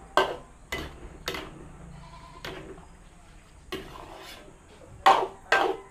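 A cooking utensil knocks and scrapes against a pot of chicken kaldereta as it is stirred. About seven sharp clanks come at irregular gaps, the two loudest close together near the end.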